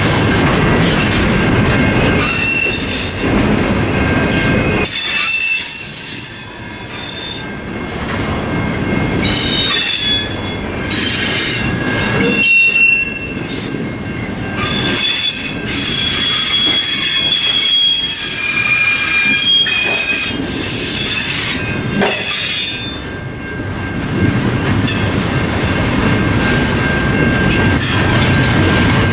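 CSX double-stack intermodal freight train's container well cars rolling past over a level crossing. Their wheels give high-pitched squeals that come and go at shifting pitches over the steady rumble of wheels on rail.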